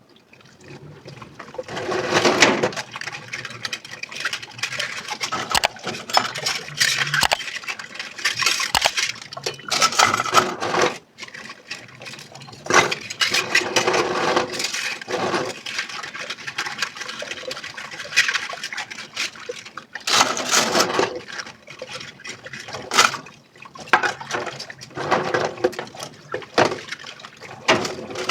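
Dishes being washed under a running kitchen tap: water splashing and gushing in uneven surges, with a few sharp clinks of dishware.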